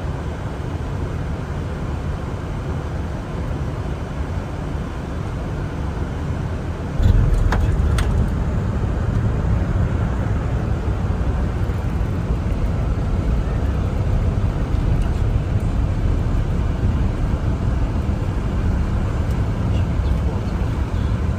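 Boeing 747 cockpit noise: a steady low rumble that steps up and grows louder about seven seconds in, with two brief clicks just after.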